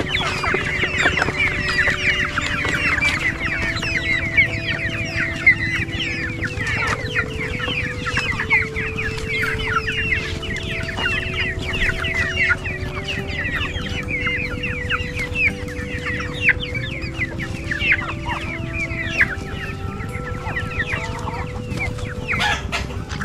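A flock of chickens, mostly young birds, clucking and cheeping in a dense stream of short calls while they feed. Under them runs background music of slow held notes. Near the end comes a brief flurry of wing flapping.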